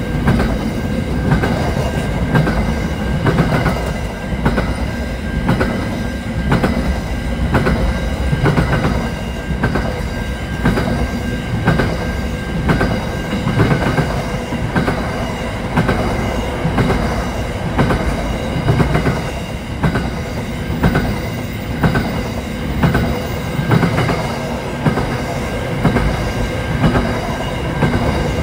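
Freight train of container and box wagons rolling past at speed: a steady rumble with wheels clacking over the rail joints in an even rhythm, about once a second.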